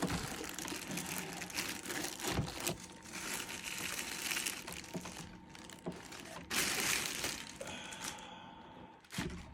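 Plastic packaging crinkling and rustling as a boxed amplifier is pulled out and unwrapped, irregular throughout with a louder stretch about two-thirds of the way in.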